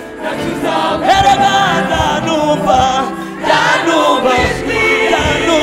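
Music: a gospel song sung by several voices together.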